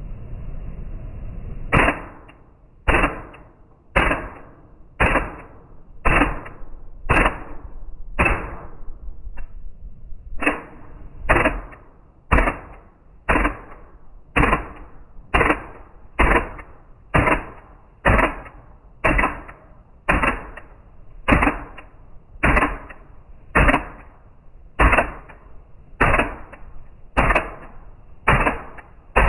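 Gas blowback 1911-style airsoft pistol firing single shots, about one sharp crack a second, each with a short tail, with a brief pause near the middle.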